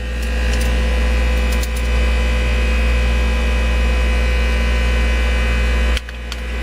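A steady, loud low machinery hum with a constant pitch. It drops away suddenly near the end and builds back up.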